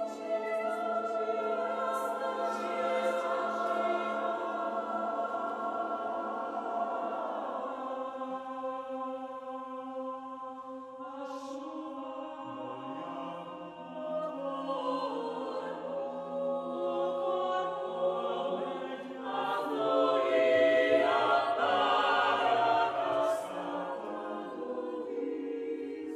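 Mixed choir singing long, held chords that shift slowly, with a few hissing consonants cutting through. Lower voices come in about halfway through, and the choir swells to its loudest a few seconds before the end.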